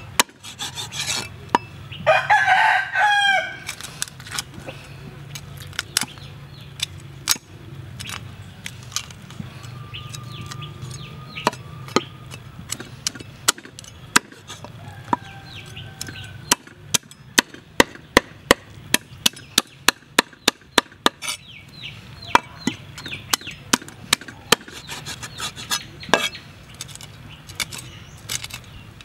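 Cleaver chopping through a whole fish on a wooden chopping board: sharp knocks throughout, in a quick run of about three chops a second in the middle. A rooster crows once about two seconds in, and chickens call faintly now and then.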